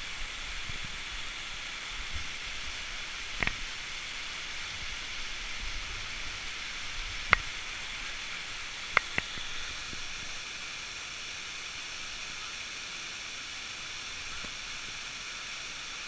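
Steady hiss of a waterfall's rushing water, with a few sharp clicks through the middle.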